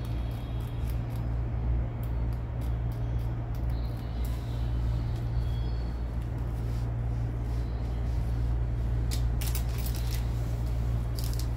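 A steady low hum, with scattered light clicks of metal surgical instruments being handled; the clicks come sharper and closer together about nine seconds in and again just before the end.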